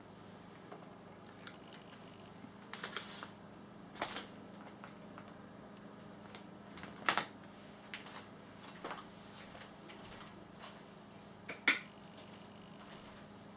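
Quiet room tone with a faint steady hum and a few scattered small clicks and rustles, the sharpest about seven seconds in and just before the end.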